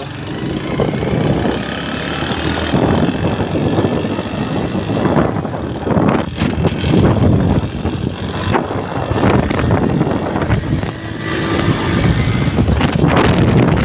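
A motor vehicle riding along a road, with road and engine noise and wind buffeting the microphone in uneven gusts.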